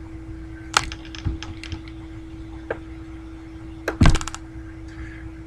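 A few scattered light clicks, then a sharper cluster of clicks with a knock about four seconds in, over a steady low electrical hum.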